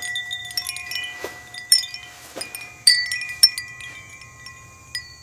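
Chimes ringing: about eight irregular strikes, each leaving a clear tone at its own pitch that rings on and overlaps the others, with the loudest strikes near the middle.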